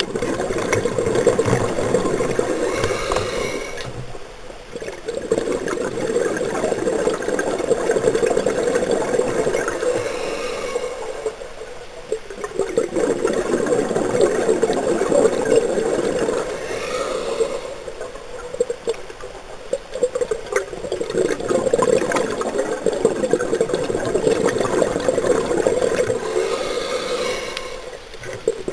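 Scuba diver breathing through a regulator underwater, heard from the camera: exhaled bubbles rushing out in long swells that ease off about every six to eight seconds between breaths.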